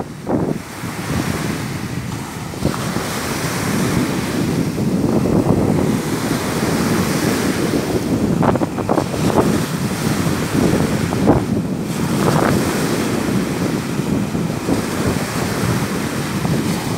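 Small waves breaking and washing up a sandy shore, mixed with wind rumbling on the microphone.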